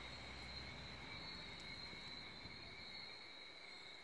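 Faint, steady chirring of insects, holding two even high tones. A low rumble fades out about a second in.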